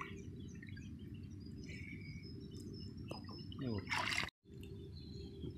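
Water splashing and dripping as a fishing net with caught fish is hauled up out of a river by hand, the biggest splash about four seconds in, just before the sound cuts out for a moment. Birds chirp throughout over a steady low background noise.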